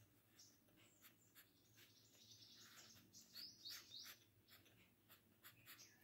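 Pencil lead scratching faintly on paper in a run of short strokes, loudest in a cluster a little past the middle.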